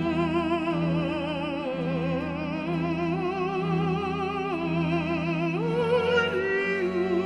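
Operatic solo voice singing slow held notes with a wide vibrato, over a steady classical accompaniment.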